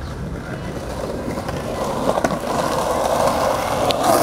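Skateboard wheels rolling on a concrete path, the rolling noise growing steadily louder as the rider approaches and passes close, with a couple of short clicks along the way.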